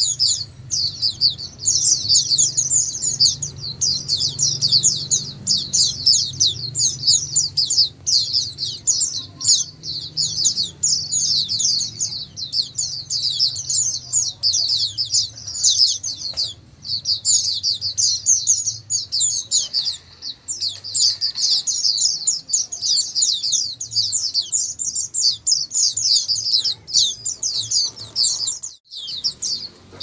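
A flock of caged white-eyes (pleci) singing together, a dense, unbroken chorus of many rapid, high chirping notes overlapping. The chorus drops out briefly near the end.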